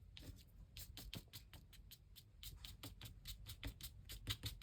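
Faint, irregular crackling and rustling of paper being handled and pressed down by hand, several small crackles a second.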